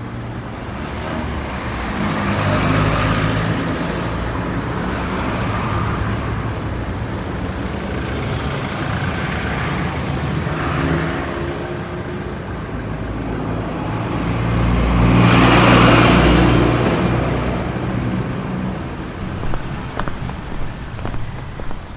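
Road traffic: cars running past, with two louder passes, one about three seconds in and a bigger one about sixteen seconds in.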